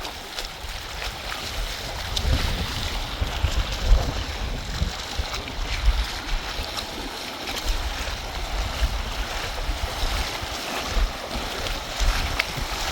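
Rushing water under a steady hiss, with wind buffeting the microphone in an irregular low rumble.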